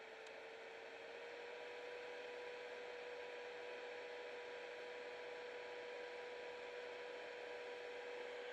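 A faint, steady high-pitched electrical whine over a background hiss. It sags slightly in pitch about a second in, then holds steady.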